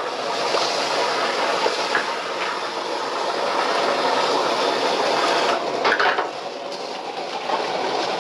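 Gas wok burner running steadily under a hot wok. Water ladled into the wok sizzles and a bamboo wok brush scrapes the metal as the wok is rinsed and scrubbed, with a short clatter about six seconds in.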